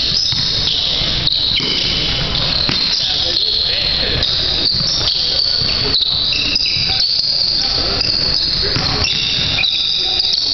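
Basketball shoes squeaking on a hardwood gym floor as players cut and stop, in many short high squeaks, with the ball being dribbled.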